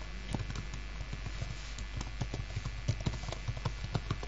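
Computer keyboard typing: quick, irregular key taps, several a second, over a faint steady hum.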